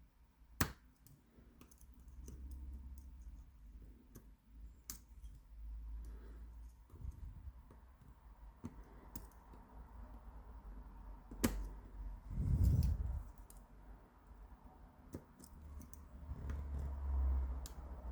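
Small metallic clicks from picking an 8-pin tubular cam lock with improvised bypass tools, scattered irregularly with a few sharper ones, over low rumbles of the tools and lock being handled in a vise.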